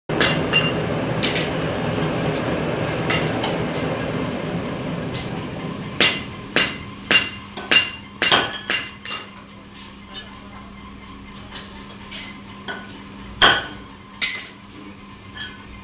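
Hammer blows on stacked metal belt pulleys, sharp metallic clinks: a quick run of strikes about twice a second from about six seconds in, then a few scattered blows, two loud ones near the end. Before the strikes, a steady rushing noise with a low hum.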